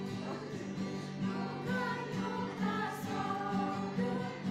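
Small choir of women singing a song together, accompanied by a guitar.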